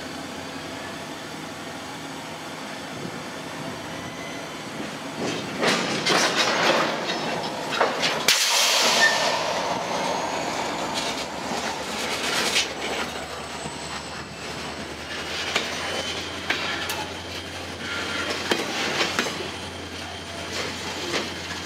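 Freight cars rolling slowly past, steel wheels clicking over rail joints, with a faint wheel squeal and a louder rush of noise about eight seconds in.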